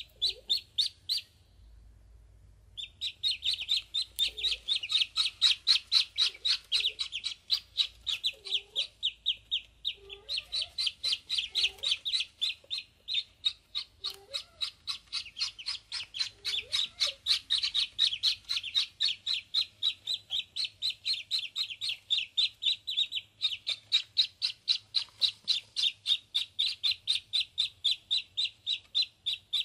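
Several ducklings peeping non-stop in a rapid string of short, high cheeps, with a pause of about a second and a half near the start.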